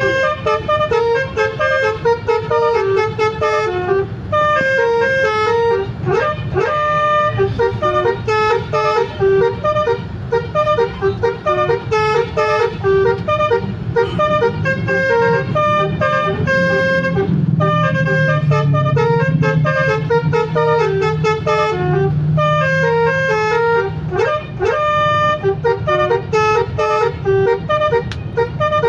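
Basuri multi-tone telolet bus horn playing a tune in quick runs of short, changing notes. A low hum runs underneath for several seconds around the middle.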